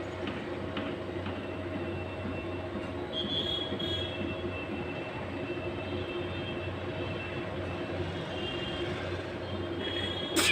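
Steady mechanical hum and rumble, with faint high squeals coming and going over it, and a brief sharp noise right at the end.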